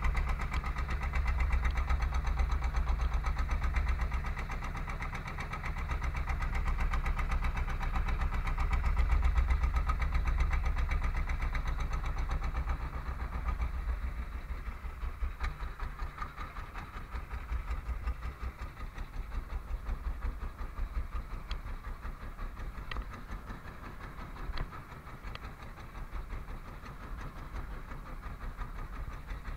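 Engine of a small wooden fishing boat running under way, a steady low throb made of rapid firing beats. It drops somewhat in level about halfway through, and the individual beats come through more distinctly.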